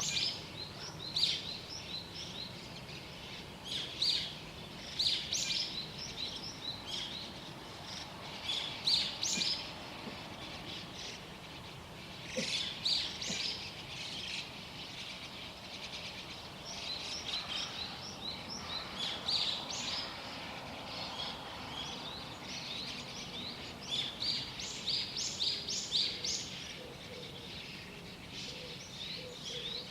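Small songbirds chirping and twittering in short, rapid clusters, with brief lulls between them, over a faint steady background hum of ambient noise.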